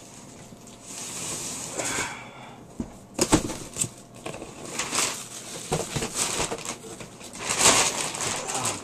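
Toy boxes and packaging being handled: rustling and scraping, with a few sharp knocks about three to four seconds in and a louder rustle near the end.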